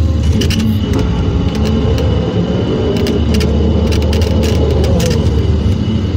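210-class excavator running under load with its hydraulic single-axis weeding head cutting through dry reeds: a steady heavy drone with scattered sharp ticks.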